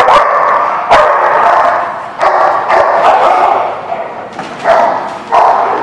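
Dogs barking and yipping in repeated loud bursts while they play together.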